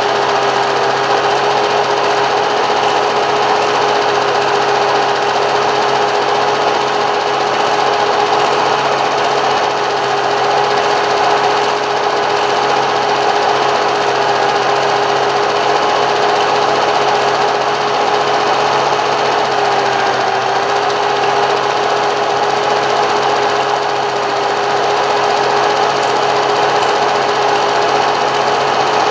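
Film projector running: a steady mechanical whirring with a constant hum that holds unchanged across the film's cuts.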